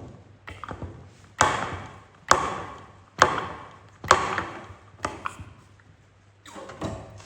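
Hammer blows on steel, about one a second, the four loudest in the middle each ringing briefly, with lighter knocks before and after.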